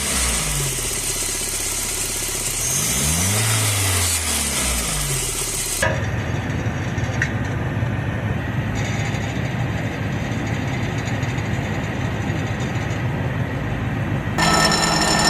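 A car engine revved up and down twice, then running with a dense metallic rattle: the sheet-metal slapping of an exhaust heat shield whose mounting bolts have worked loose.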